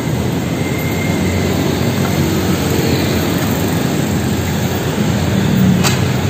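Steady, loud roar of street traffic passing close by, with a brief click near the end.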